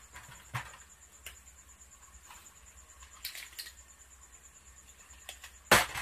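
Scattered light clicks and knocks of a handheld digital multimeter and its test probes being handled over the plastic back panel of an LED TV, with a louder knock near the end as the meter is set down.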